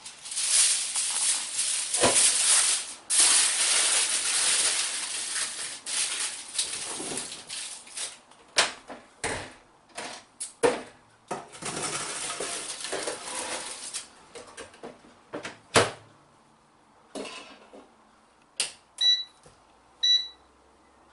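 Aluminium foil being torn and crinkled over a baking dish, then several knocks and clatters of the dish and rack being loaded into a Power AirFryer oven. Near the end, two short electronic beeps about a second apart from the air fryer's control panel.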